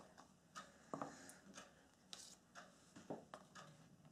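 Near silence with faint clicks: a regular tick about once a second, and in between, irregular clicks and rustles of hands handling a small plastic yeast container.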